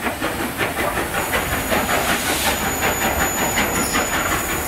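LMS Royal Scot class 4-6-0 steam locomotive 46100 on the move, hissing steam with a quick regular beat. A thin high steady tone joins about a second in.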